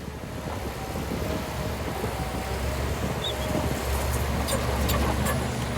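Heavy machinery, most likely a bulldozer's diesel engine, running with a steady low rumble that builds slightly. Sharp metallic ticks come in from about four seconds in.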